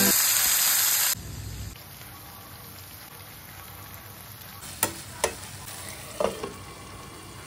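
Chopped tomatoes sizzling in hot oil in a frying pan. The sizzle is loud for about the first second, then settles to a steady low sizzle. A steel spoon clinks against the pan a couple of times, and a glass lid knocks as it is set on near the end.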